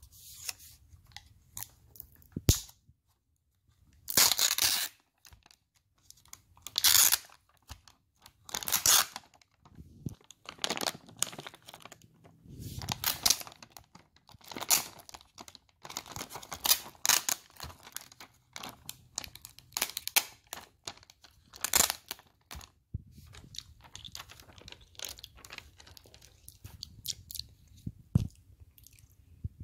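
Close-up crunching and crinkling of food being handled and eaten, in short irregular bursts every second or two.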